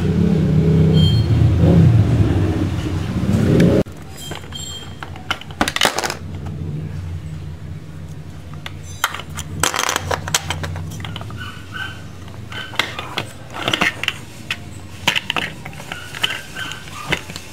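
Hard plastic parts of a toy dough extruder car clicking and knocking as they are handled, taken apart and opened, over a steady low hum. A loud low rumble fills the first few seconds and cuts off suddenly.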